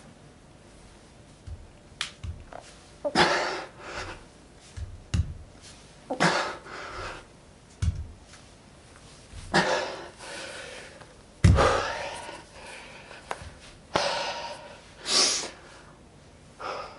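A man's forceful, noisy breaths as he lifts a kettlebell, about five blasts roughly three seconds apart, one for each lift. Short dull thumps come in between, the loudest about eleven seconds in.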